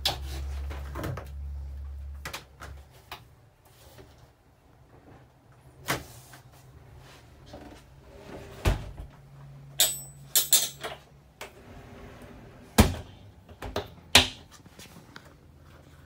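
Travel-trailer cabinet doors and latches being opened and shut: a string of sharp clicks and knocks, several close together about ten seconds in, after a low hum in the first two seconds or so.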